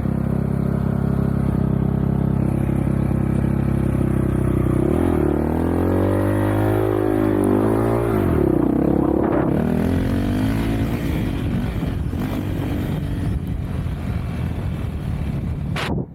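Off-road vehicle engine running at a steady speed, then from about five seconds in its pitch rises and falls several times as the throttle is worked, before settling into a rougher, noisier run. A brief break in the sound comes right at the end.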